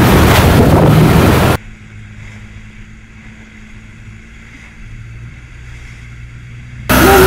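Wooden boat under way: wind buffeting the microphone over the running engine and rushing water. About a second and a half in it cuts off suddenly to a much quieter stretch with only a faint low steady hum, and the loud wind and engine noise return near the end.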